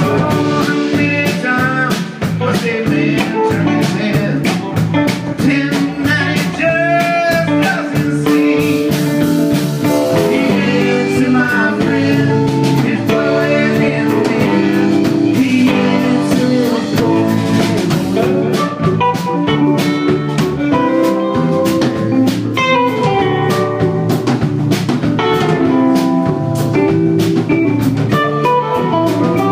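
Live rock band playing: electric guitars and keyboard over a drum kit.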